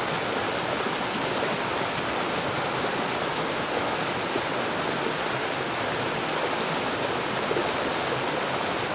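Waterfall: a steady rush of falling and splashing water, even and unbroken.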